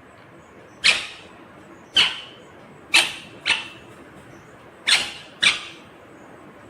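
Indian ringneck parakeet giving six short, sharp squawks, about one a second, some of them in quick pairs.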